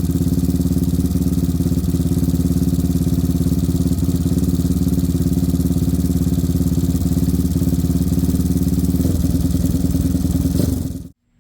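Yamaha Raptor 700's single-cylinder four-stroke engine idling steadily, run to circulate oil after the oversize oil tank was filled, then shut off and cutting out suddenly near the end.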